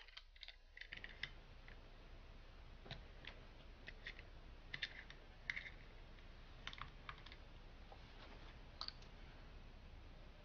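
Faint, scattered small clicks and ticks of greased needle bearings on a loading rod being slid into a T-90 transmission's cluster gear, the steel parts handled by hand.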